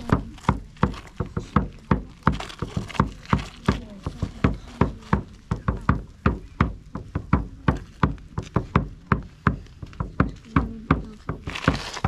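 A drum beaten in a steady, even rhythm, about four beats a second, each stroke a sharp hit with a deep thump.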